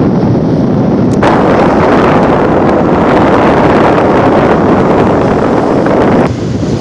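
Wind blowing across the microphone, with small waves washing up onto a sandy beach. The wind noise gets louder about a second in and eases near the end.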